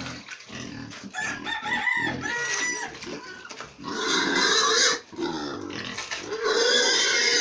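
Pigs grunting, then two loud squeals of about a second each, the first about four seconds in and the second about six and a half seconds in.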